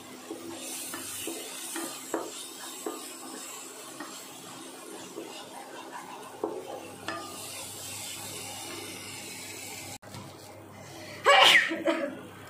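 A spoon stirring and scraping through onions, tomatoes and soya chunks in a nonstick pan, over a soft sizzle as the spiced masala is roasted, with scattered clinks of the spoon on the pan. About eleven seconds in, after a break, comes a short, much louder sudden sound.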